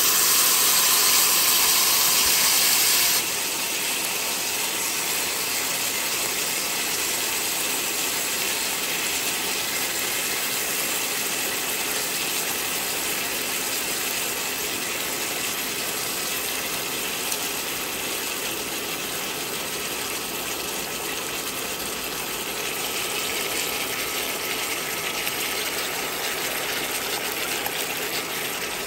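Sauce poured into a hot cast-iron skillet hisses loudly for about three seconds, then settles into a steady sizzle of broth bubbling in the pan.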